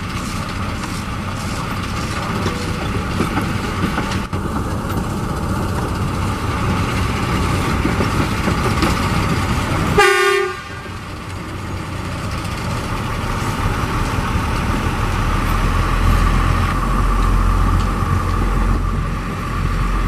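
Diesel track-maintenance train, a Plasser & Theurer TG 80-4 motor car hauling a flatcar with an excavator on it, rolling slowly along the rails with its engine running. There is a short horn toot about halfway through, and in the second half the deep engine rumble grows louder as the train comes close.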